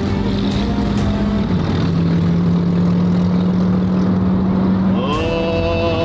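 Car engine running at a steady speed with a constant drone that dips slightly in pitch after a second and a half. About five seconds in, a new pitched sound with several overtones rises quickly and then holds.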